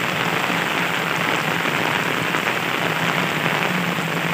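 Heavy rain falling steadily on a paved road, a dense even hiss of drops.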